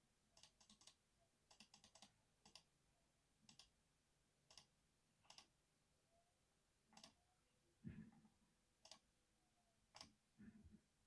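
Faint keystrokes on a Ducky One 3 Mini mechanical keyboard with silver speed switches: a few quick runs of presses at first, then single keystrokes about once a second, one of them heavier and deeper about eight seconds in.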